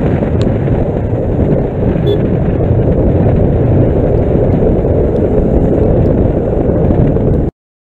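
Wind rushing over the microphone of a moving motorcycle, a loud, steady rumble of wind and road noise. It cuts off suddenly near the end.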